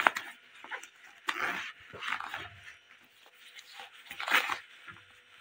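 A nylon backpack being handled and tugged open at its broken zipper, in several short bursts of rustling.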